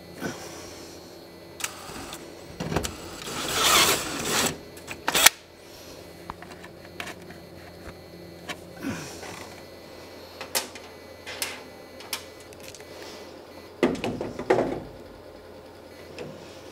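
Hand work with small metal hardware and a hand tool at a truck's sheet-metal firewall: scattered clicks and scrapes, a rough scraping stretch about three seconds in, a sharp click just after five seconds, and more scraping and clicks near the end.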